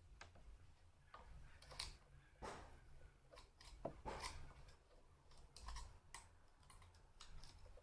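Faint, scattered clicks and scrapes of the chainsaw's bar and chain being handled.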